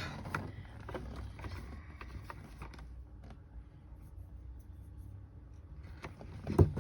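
Small metal clock parts handled and fitted together, giving scattered faint clicks over a low rumble, with one sharp knock near the end.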